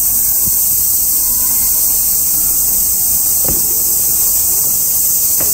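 Steady high-pitched drone of a summer cicada chorus, with faint distant voices and a soft knock about three and a half seconds in.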